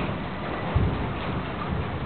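Steady rain falling, with a brief low thud a little under a second in and faint low rumbling below it.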